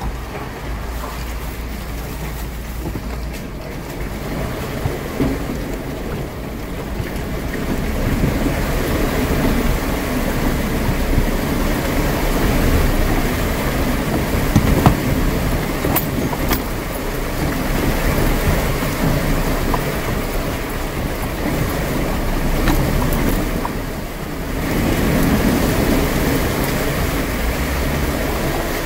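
Jeep Wrangler driving slowly through standing water: a steady rumble of the engine with the tyres churning and splashing, growing louder about a quarter of the way in and dipping briefly near the end.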